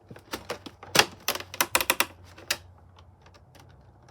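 Quick, irregular clicks and snaps of plastic doll packaging being handled and worked loose, thick for the first two and a half seconds, then only a few.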